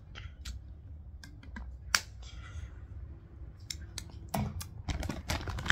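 Light handling clicks of a plastic water bottle and snack packet, with one sharp click about two seconds in, then denser crackling near the end as a foil crisp packet is handled.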